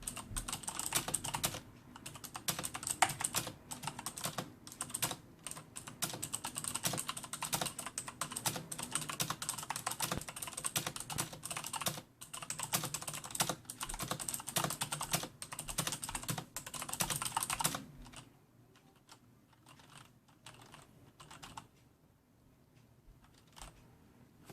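Typing on a Corsair K70 mechanical keyboard with clicky Cherry MX Blue switches: fast continuous keystrokes that thin out about three-quarters of the way through to a few isolated key presses.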